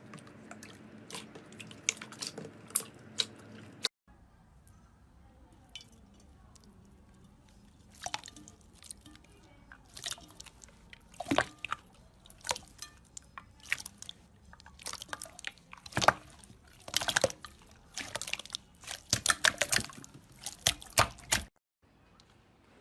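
Slime being squished and pressed by hand, giving irregular wet clicks and sticky pops that come thicker in the second half.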